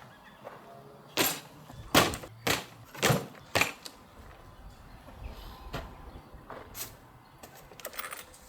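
A series of short, sharp knocks or clatters, about five in quick succession, then a few fainter ones near the end.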